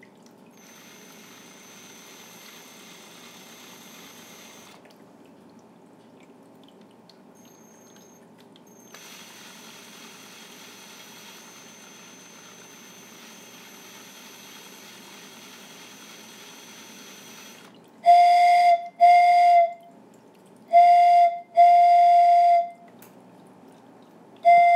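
Turned Corian whistle blown in five short blasts at one steady, high, piercing note, the last starting just before the end. Before the blasts there is only a faint steady hiss.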